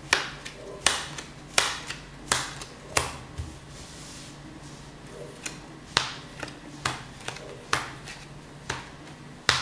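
Playing cards being dealt one at a time onto a table mat, each landing with a crisp slap. Five cards in an even rhythm of a little under a second apart, a pause of about three seconds, then five more.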